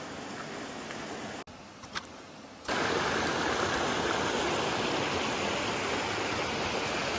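Rushing water, a steady hiss that jumps suddenly louder about two and a half seconds in and then holds even.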